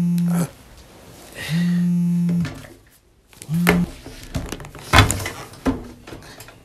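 Mobile phone buzzing for an incoming call: three low, even buzzing pulses, the last cut short after about half a second as the phone is picked up. Then handling rustles and clicks, with a sharp knock about five seconds in.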